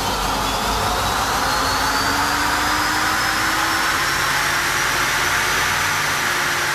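A machine running steadily with a loud rushing noise and a whine that slowly rises in pitch.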